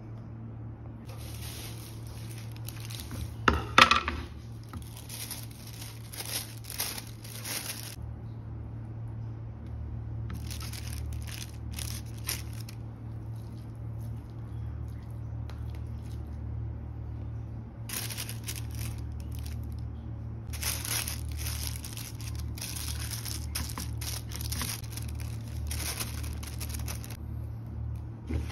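Thin plastic bag crinkling and rustling in stretches as raw ground beef is worked inside it, with a sharp clatter about four seconds in. A steady low hum runs underneath.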